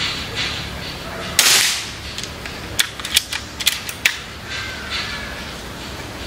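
Seneca Sumatra 2500 .25-calibre pre-charged pneumatic air rifle firing one shot about a second and a half in, a sharp crack that dies away over half a second, set at mid power on its power wheel. A few sharp clicks follow a second or so later, and the next shot begins right at the end.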